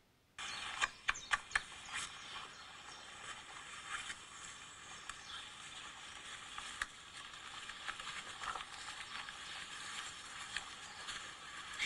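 Audio of a video playing on a smartphone, thin as through the phone's small speaker: a steady outdoor hiss with scattered clicks and crackles, several louder clicks in the first couple of seconds, starting suddenly about half a second in.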